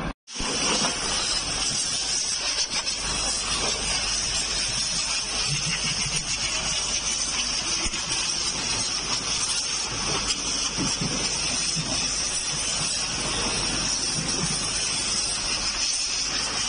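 Compressed air hissing steadily from an air blow gun, blowing the embossed mould surface clean. The hiss cuts in abruptly just after the start.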